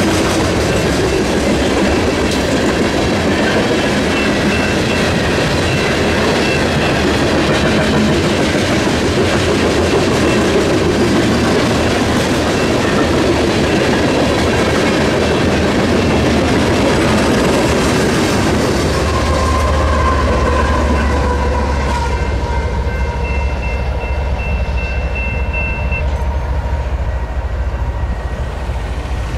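A loaded coal train's cars roll past at a grade crossing: a dense, steady rumble with clickety-clack from the wheels. About two-thirds of the way through, the dense rolling noise drops away as the end of the train goes by, leaving a lower rumble and a few thin high tones.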